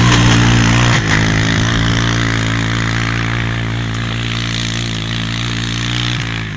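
Off-road vehicle engine running loud and close at a steady speed, its pitch almost constant, with a brief dip about a second in.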